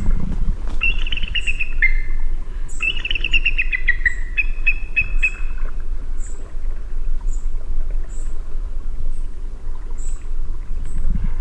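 An eagle's chittering call, in the first half or so: two quick series of notes falling in pitch, then a short run of repeated notes on one pitch. Under it is a steady low background rumble, and faint high ticks repeat about every half second later on.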